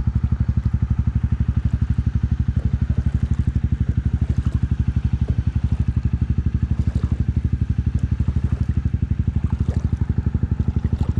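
Honda CRF250L single-cylinder four-stroke engine running at a steady low idle, an even rapid pulsing, with faint splashes of flood water.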